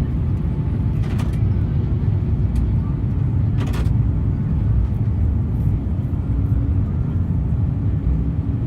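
Airbus A350-900 cabin noise on the departure from Perth: a steady low rumble of the engines and airframe, with a couple of short thumps about one and four seconds in.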